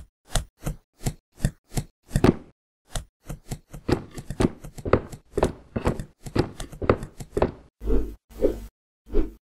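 A quick series of sharp knocks and thumps, cartoon sound effects of cardboard boxes being set down and stacked. They come about three a second, get faster after about three seconds, and end with three heavier thuds.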